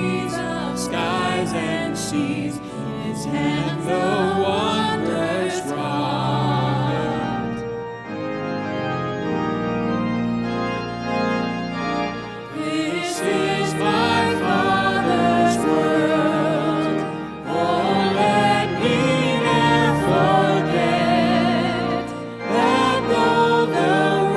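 A worship song: voices singing with vibrato over sustained instrumental accompaniment. It thins to a softer held passage around the middle, then builds back up.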